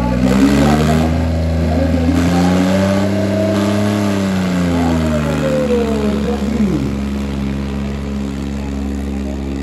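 Diesel tractor engine revving hard under load as it drags a disc harrow. Its pitch climbs over the first few seconds and falls back again.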